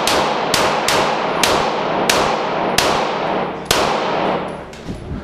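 Handgun fired in a quick string: seven shots in about four seconds at uneven spacing. Each shot rings on in a long echo off the stone walls and low ceiling.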